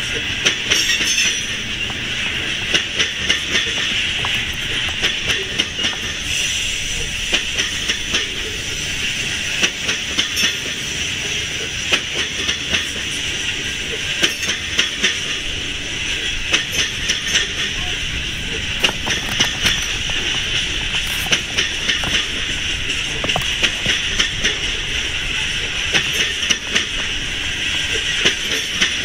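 Loaded coal hopper cars of a BNSF coal train rolling steadily past, steel wheels clicking irregularly on the rails over a constant high rushing noise.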